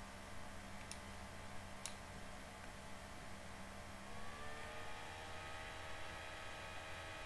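Two faint mouse clicks about a second apart over a steady low computer hum. About four seconds in, a whirring tone sets in, rising slightly in pitch and then holding, like a computer fan speeding up.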